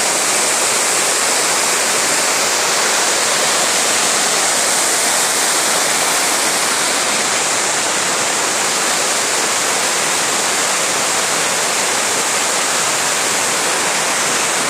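Wide waterfall pouring, a loud, steady, even rush of falling water.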